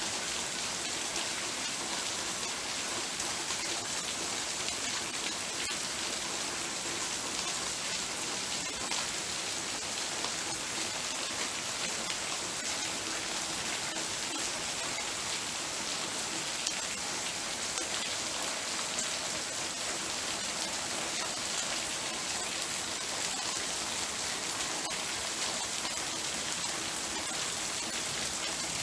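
Heavy rain falling steadily: a dense, even hiss of drops hitting surfaces, with no breaks or thunderclaps.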